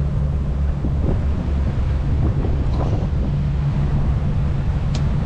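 Motor trawler's diesel engines running steadily under way, a low even drone, with wind buffeting the microphone.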